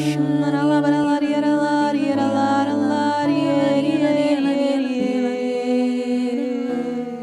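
Slow, gentle devotional music: a voice sings long held notes over sustained low accompaniment.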